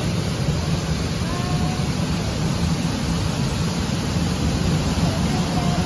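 Steady rushing noise, heaviest in the low end, with faint brief tones about a second in and again near the end.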